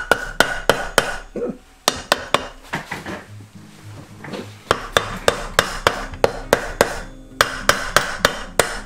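Runs of hammer blows on metal, about three a second, some followed by a short ringing tone, broken by brief pauses about a third of the way in and just before the last third.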